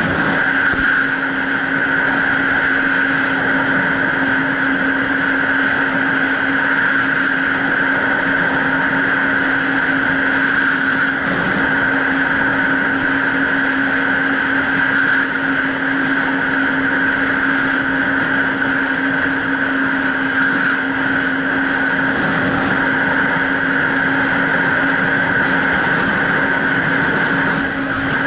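Jet ski engine running steadily at cruising speed, holding the same pitch throughout, with the hiss of water rushing past.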